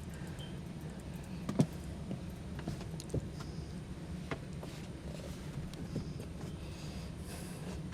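Scattered light clicks and knocks of metal parts being handled and fitted into the burner compartment at the bottom of a gas water heater, one sharper knock about a second and a half in, over a steady low hum.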